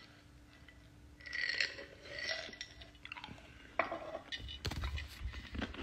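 Ice cubes shifting and clinking in a drinking glass as someone drinks from it, then a dull bump near the end.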